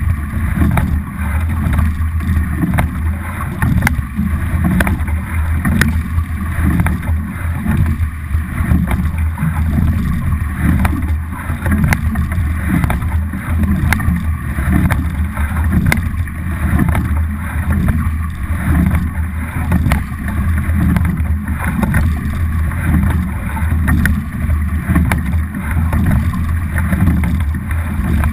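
Onboard sound of a racing double scull being rowed hard: water rushing along the hull and wind buffeting the microphone, swelling about every two seconds with the strokes, with sharp clicks from the oars and rigging.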